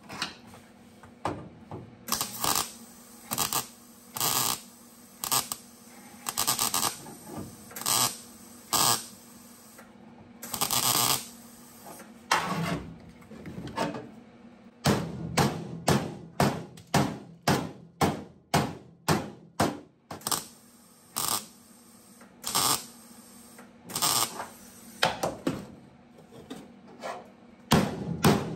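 Metalwork on the sheet steel of a VW Beetle's inner rear quarter panel: a run of short, sharp bursts, scattered at first, then a quick series of about two or three a second in the middle.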